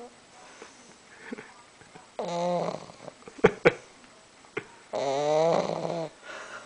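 English bulldog snoring: two loud, rasping pitched snores, a shorter one about two seconds in and a longer one about five seconds in. A few sharp clicks fall between them.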